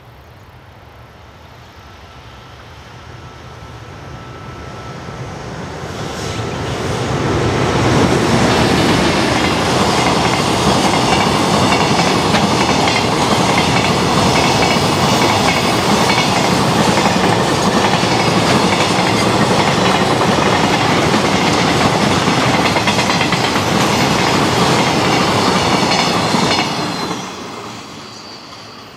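JR Freight EF510 electric locomotive hauling a long container freight train past: the sound swells over the first several seconds as the train approaches. A long, steady rumble and clatter of the container wagons' wheels on the rails follows, cutting off sharply near the end as the last wagon goes by.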